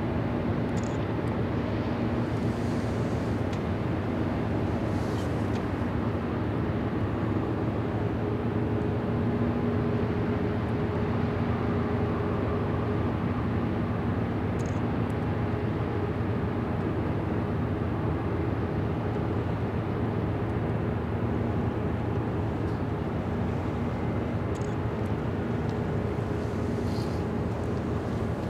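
Steady low drone of a large container ship's engines as it passes, with a few steady humming tones over a rumbling background.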